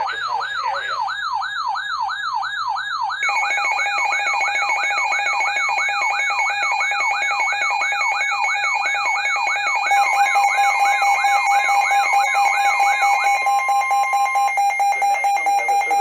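Several weather alert radios sounding their alarms at once: a warbling tone sweeps up and down about two and a half times a second. About three seconds in, a steady two-tone alarm joins it, and a third steady tone comes in near ten seconds. The warble stops shortly before the end while the steady alarm carries on.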